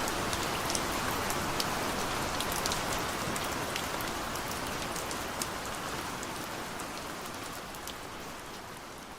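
Heavy rain falling steadily, with many separate drops striking close by as sharp ticks over the steady hiss. The sound slowly fades over the last few seconds.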